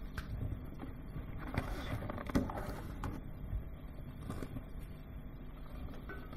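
Low hall rumble with a few light knocks and clicks as kitchen utensils and containers are handled on a stainless steel work counter.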